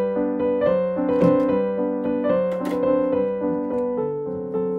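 Background piano music, a gentle keyboard melody. A few brief high clicks come through about a second in and again about two and a half seconds in.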